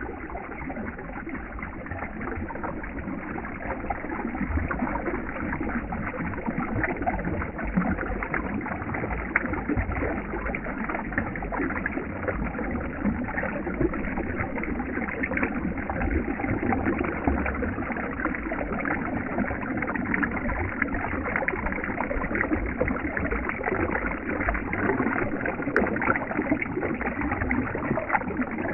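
Moving water making a steady rushing noise.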